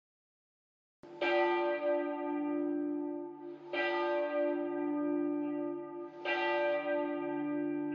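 A church bell tolling: three slow strikes about two and a half seconds apart, each left to ring on, starting about a second in.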